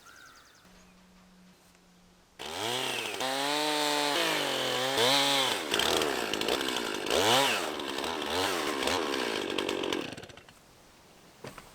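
Chainsaw mill's chainsaw starts up about two seconds in, revving up and down several times, then runs ripping a log lengthwise before it shuts off near the end.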